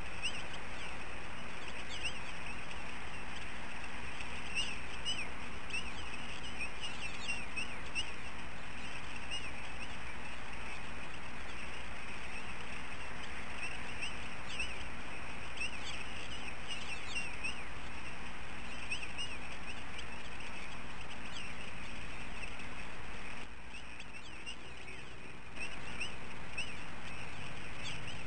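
Birds calling in many short, high chirps, one after another, over a steady hiss and low hum.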